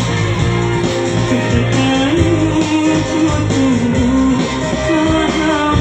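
Live dangdut band music played loud through a stage PA, a guitar carrying a melody that bends up and down over the band.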